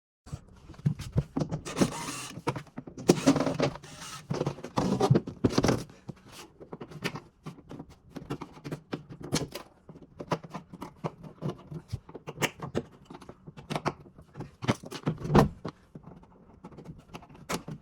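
Irregular handling noise: a run of clicks, knocks and rustles, busiest and loudest in the first few seconds, with one sharper knock near the end.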